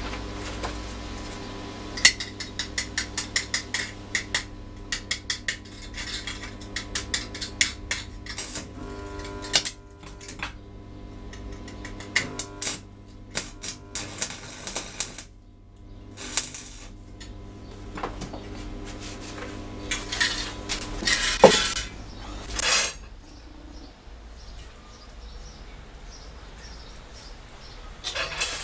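Steel parts clinking and tapping on a steel workbench in quick runs of sharp clicks, with stretches of electric arc welding crackle as the parts are tacked together. A steady low hum runs underneath.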